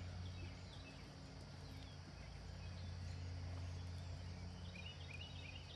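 Faint hoofbeats of horses cantering on a sand arena, over a low steady hum, with a few bird chirps near the end.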